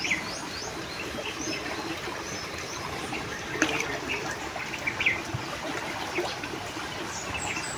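Shallow creek water trickling and splashing around legs wading through it, with a couple of sharper splashes about three and a half and five seconds in. Birds chirp now and then.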